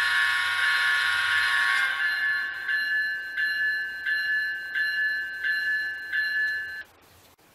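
Sound decoder in an N-scale GE Tier 4 GEVO model locomotive playing its horn, several tones sounding together, through the model's small speaker, with the locomotive bell ringing. The horn stops about two seconds in. The bell keeps ringing, about one stroke every 0.7 s, and cuts off suddenly near the end.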